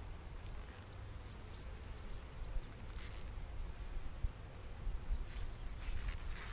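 Honeybees buzzing faintly around an open hive, with wind rumbling on the microphone. In the last second or so there are a few light wooden scrapes and taps as a brood frame is lowered back into the hive box.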